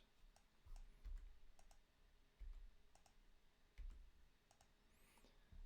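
Faint, scattered computer mouse clicks over near-silent room tone, with a few soft low thumps.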